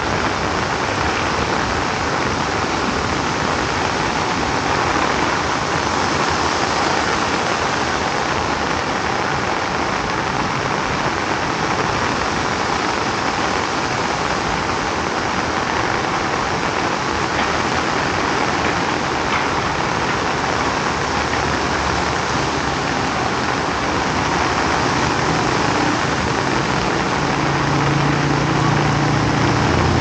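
Heavy rain falling steadily. In the last several seconds a motor vehicle's engine hum grows louder.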